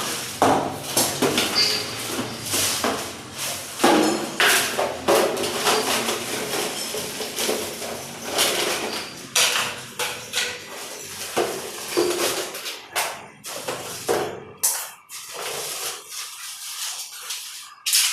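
Irregular knocking, clattering and scraping of toilet flush tank parts being handled and worked on, thinning out to a few separate clicks near the end.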